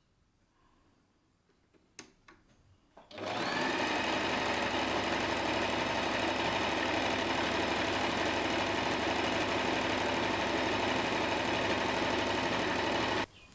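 Electric sewing machine stitching at a steady speed for about ten seconds. It starts about three seconds in after a few light clicks, winds up quickly, and stops abruptly near the end.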